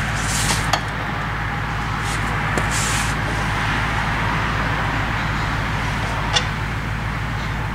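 Steady workshop background noise, a constant whooshing hiss over a low electrical hum, with a few light clicks and taps from a steering column being handled.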